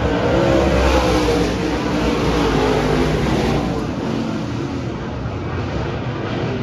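Dirt-track stock car engines running as the cars pass on the oval, several engine notes rising and falling together. The sound is loudest in the first few seconds and eases off a little toward the end.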